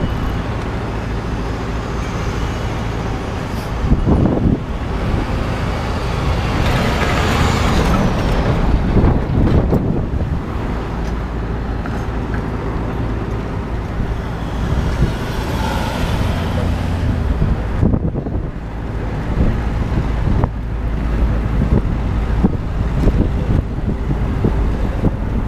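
Busy city street traffic: a steady low rumble of car, truck and bus engines, swelling as vehicles pass about four seconds in, again around seven to ten seconds, and near sixteen seconds.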